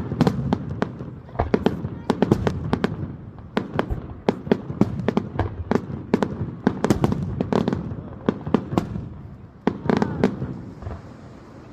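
Fireworks display: a rapid, irregular string of sharp bangs and crackles over a low rumble, thinning out near the end.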